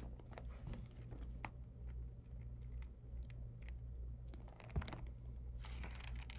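Pages of a paper booklet being turned and handled: scattered soft clicks and rustles, with a small thump a little before the end and a longer rustle near the end. A low steady hum runs underneath.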